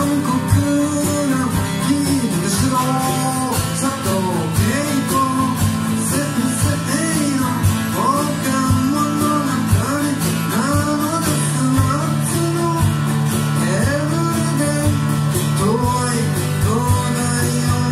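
Live acoustic band music: an acoustic guitar strummed under a man singing, with a steady beat from a drum kit.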